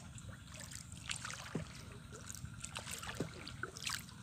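Water lapping and trickling against a small wooden boat's hull, with scattered irregular small ticks and clicks.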